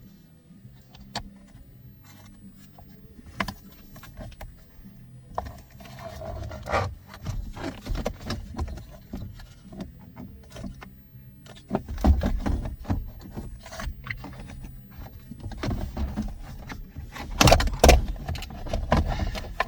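A car's dashboard fan housing and plastic dash parts scraping, rubbing and clicking as they are worked back into place. Heavier knocks come in the second half, loudest near the end.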